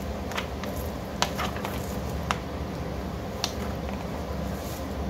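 A paper booklet being handled and a page turned: a few short, sharp clicks and a soft rustle over a steady low room hum.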